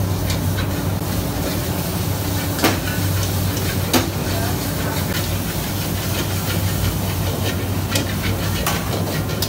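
Stir-frying in a wok over a gas wok burner: a steady burner and extractor-hood rumble with the noodles sizzling, and a metal ladle clanking against the wok a few times, the clearest about two and a half and four seconds in.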